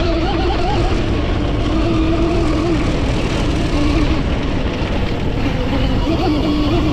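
Electric dirt bike's QS138 brushless motor and reduction gearing whining, the pitch wavering up and down, over a steady low rush of noise.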